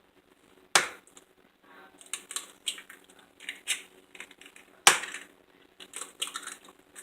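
Two eggs cracked one after the other on the rim of a bowl: a sharp crack about a second in and another about five seconds in, with small shell clicks and crunches between them.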